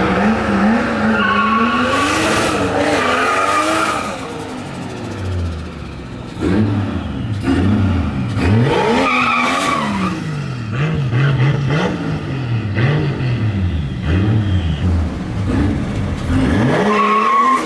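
A car engine revving up and down over and over, about once a second in the second half, with tires squealing as they spin and slide.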